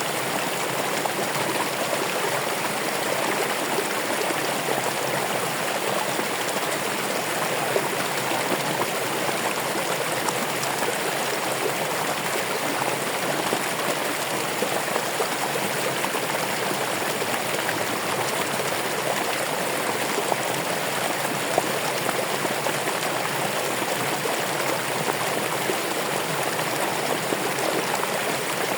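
Running water flowing steadily over rocks, a continuous rushing and splashing with no change.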